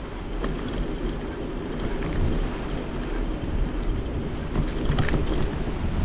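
Sea waves washing on the shore with wind rumbling on the microphone, and a few faint ticks.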